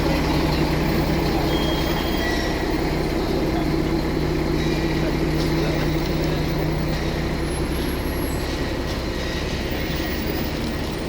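Olympian double-decker bus engine running steadily, its sound slowly getting quieter, with a lower part of the hum dropping out about seven seconds in.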